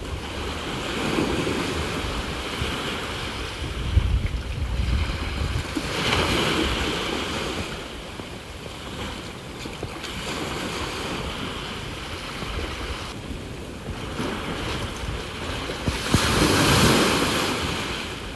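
Sea waves breaking and washing up the shore in repeated surges that swell and fade every few seconds, the biggest one near the end. Wind buffets the microphone with a low rumble.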